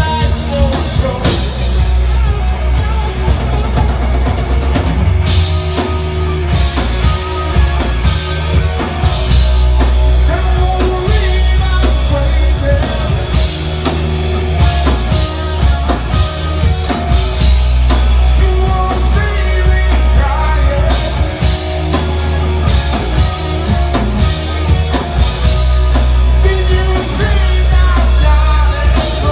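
Live rock band playing, with a steady drum-kit beat and heavy bass; the cymbals drop out for a few seconds about two seconds in and come back about five seconds in.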